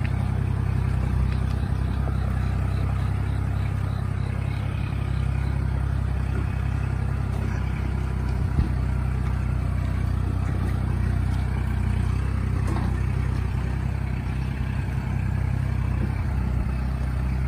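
Kubota L4018 tractor's diesel engine running steadily under load as it climbs a stony track, with a single small click about halfway through.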